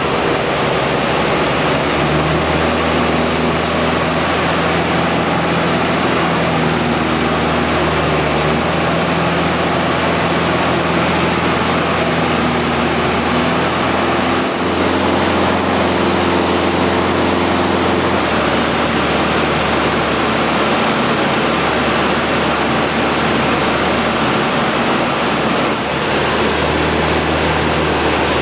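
Mudry CAP 10B's four-cylinder Lycoming engine and propeller, heard from inside the cockpit over loud rushing airflow. The engine note steps to a new pitch several times, about two, nine, fifteen, eighteen and twenty-six seconds in, as power and airspeed change through the manoeuvres.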